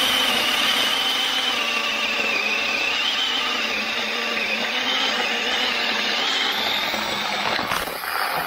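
Avhrit 6-inch cordless mini chainsaw cutting through a log under load: a steady high motor-and-chain whine that wavers slightly as the chain bites. Near the end the cut breaks through, with a few sharp cracks as the sound starts to drop.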